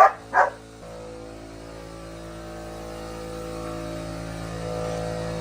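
Two sharp German Shepherd barks, then an air compressor motor kicks in and runs with a steady, pulsing hum that slowly grows louder.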